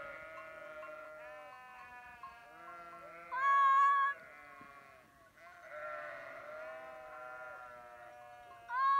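Flock of Valais Blacknose sheep bleating, many calls overlapping, with one loud bleat about three and a half seconds in and another just before the end.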